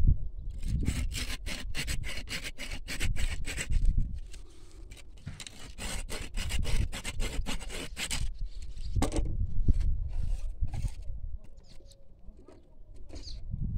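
Hand pruning saw cutting through an old grapevine trunk, rasping back and forth at about four to five strokes a second in two long runs, then in slower, scattered strokes.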